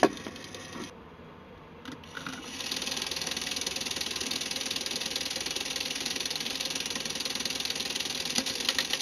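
A sharp click of Lego parts pressed together, then, about three seconds in, a Lego Technic electric motor starts driving a Lego fake straight-four engine: a steady plastic whirring of gears with fine rapid ticking from the moving pistons and cranks.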